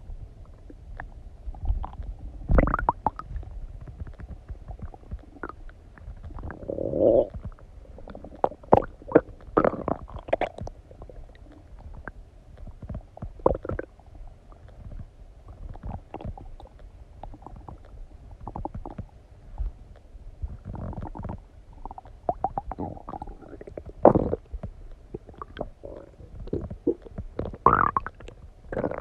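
Human stomach gurgling and rumbling while digesting a recent meal: irregular short bubbling gurgles and squeaks, some with a sliding pitch, coming every second or so.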